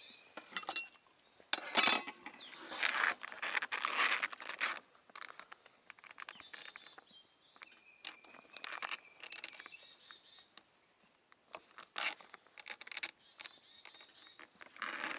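Crinkling and rustling of a plastic food pouch as it is handled and squeezed, in loud crackly bursts with a few sharp clicks, while curry is spooned out of it. Birds chirp faintly underneath.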